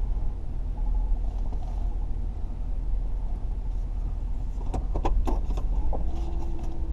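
Car engine idling, heard from inside the cabin as a steady low rumble. About five seconds in come a few sharp clicks and rustles as a cardboard sandwich box is handled.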